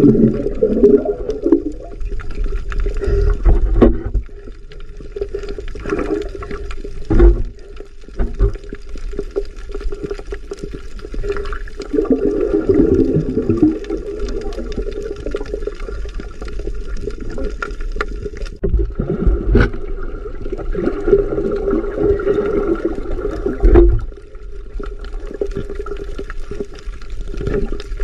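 Underwater sound heard through a camera's waterproof housing: muffled water noise with recurring bursts of bubbling gurgles and a few dull knocks.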